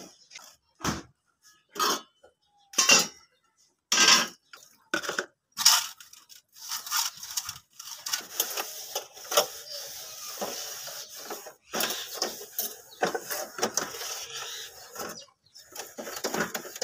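A stainless steel two-burner gas stove being washed by hand: a series of separate metal clanks and knocks as it is handled, then about six seconds in, steady scrubbing and rubbing of a wet cloth over the steel top.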